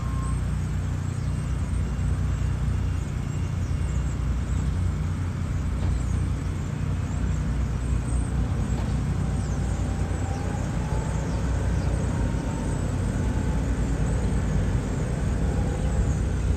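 Diesel engine of a TL1255 telehandler running steadily as it drives loaded with a small shipping container, a constant low drone.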